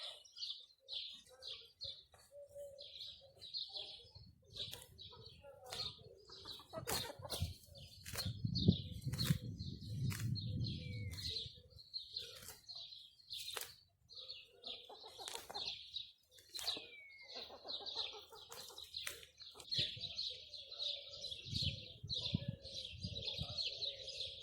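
Small birds chirping and twittering continuously, with a few downward-gliding calls. Sharp clicks or taps are scattered throughout, and a low rumble rises for a few seconds near the middle.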